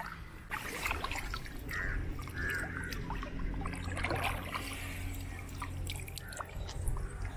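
Shallow water splashing and dripping as a fishing line and net trap are worked through it by hand: a run of small, irregular splashes and drips.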